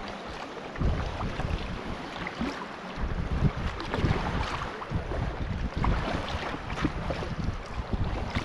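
Wind rumbling on the microphone, in gusts that come and go, over the water sounds of a kayak on a river, with scattered small splashes.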